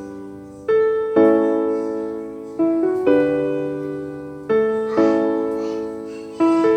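Background piano music: slow chords, each struck and left to fade, played in pairs about every two seconds.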